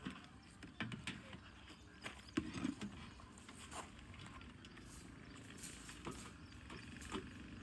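Quiet outdoor rural ambience: a faint steady background broken by scattered short clicks and knocks, the loudest knock about two and a half seconds in.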